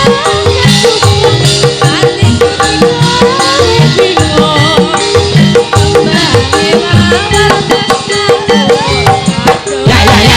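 Javanese gamelan music playing, with held metallophone tones, a gliding melody line above and steady kendang hand-drum strokes.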